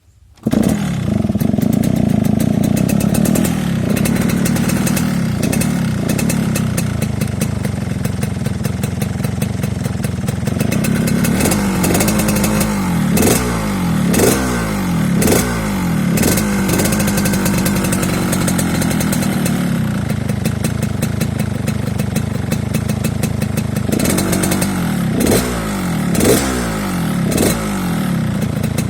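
Yamaha RX-King two-stroke single-cylinder motorcycle running through a hollowed-out Medan-style 'bobokan' exhaust with a long baffle, giving a rattly 'ngorok' (snoring) note at idle. The throttle is blipped in a run of about six quick revs around the middle, and four more near the end.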